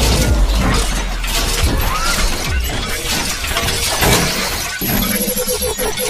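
Intro sound effects: a dense run of crashing, shattering noise with repeated sudden hits, laid over music.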